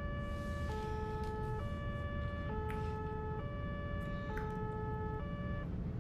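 Ambulance two-tone siren, switching between a high and a low note about every second, heard from inside the moving vehicle over a steady low road rumble.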